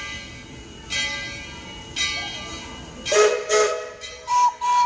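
Steam locomotive bell ringing about once a second, then two loud whistle toots and two shorter, higher-pitched toots near the end.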